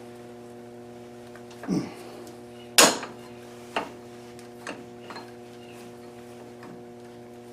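Heavy wire cutters snapping through an old, worn rubber lathe drive belt: one sharp snip about three seconds in, followed by a few light clicks, over a steady electrical hum.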